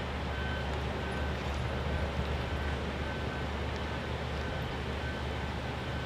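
Heavy truck engines running low and steady on the road, with a faint high beep repeating about one and a half times a second.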